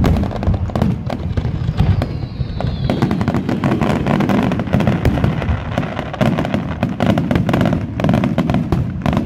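Aerial firework shells bursting in a rapid barrage of booms and crackles, packed closely together, with a faint falling whistle about two seconds in.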